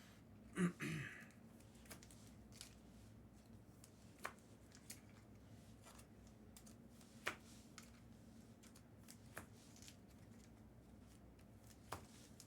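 Trading cards being handled and flipped through by hand: faint sliding and rustling with a few sharp clicks and taps. There is a brief louder thump about half a second in.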